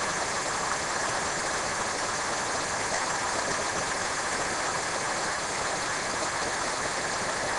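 Small mountain stream cascading over rocks: a steady rushing hiss of water.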